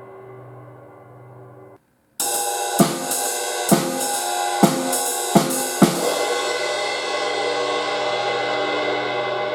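Zildjian 20-inch crash ride cymbal (1980 g). The ring of an earlier stroke cuts off, and about two seconds in the cymbal is crashed. Five sharp hits follow over the next three and a half seconds, leaving a long bright wash.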